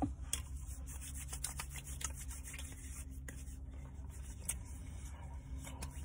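Hands rubbing together, working in hand sanitizer: faint soft rubbing with scattered small clicks over a steady low hum.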